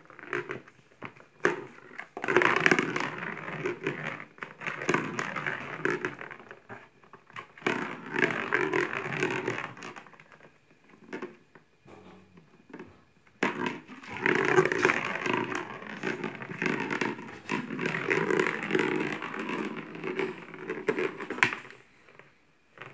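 A kitten's claws and a small ball scraping and rattling against the inside of a hard plastic basin. It comes in two long spells of scrabbling, with scattered clicks in the quieter stretch between them.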